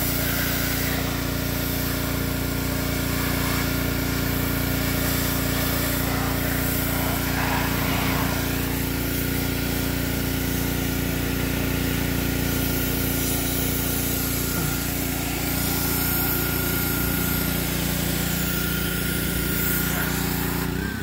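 Small gasoline engine of a pressure washer running at a steady speed, with the hiss of its water jet.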